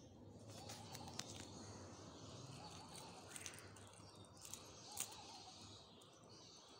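Faint outdoor background with a few bird chirps, and several light clinks of metal key rings as a hand picks among resin keychains, the sharpest about five seconds in.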